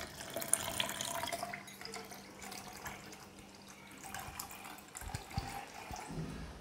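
Chilled milk poured in a thin stream from a steel pot into a plastic shaker jar, splashing onto the coffee, sugar and water mix. The pouring is loudest in the first second or two and then tapers off, with a couple of soft knocks near the end.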